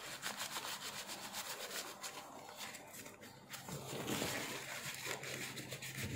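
Cloth rubbing over a small plastic circuit board in short quick strokes, wiping its switch contacts clean, with a brief lull about halfway through.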